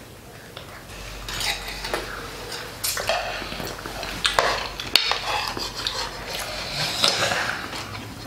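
Metal spoons clinking and scraping on plates, at irregular moments, as several people eat rice from them.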